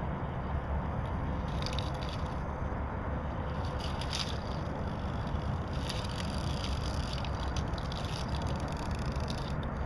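RC scale crawler truck climbing over rocks: its tyres and chassis scrape and rattle against stone in irregular bursts, over a steady low rumble.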